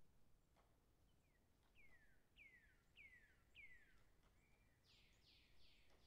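Faint bird song: a run of about five quick falling notes, followed near the end by three broader, falling notes.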